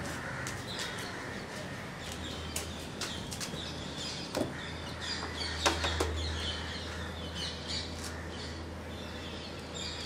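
Many birds chirping, short high calls scattered throughout over a low steady hum. A few sharp knocks come near the middle as the plastic buckets of rice are handled and set down.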